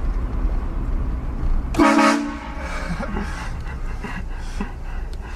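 A short, loud blast of a vehicle-mounted train horn about two seconds in, over the low rumble of the vehicle.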